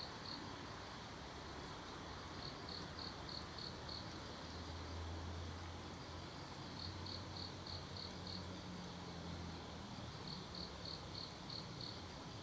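Crickets chirping faintly in trains of five or six short, high pulses that recur every three to four seconds, over a steady background hiss. A faint low hum rises in the middle and fades again.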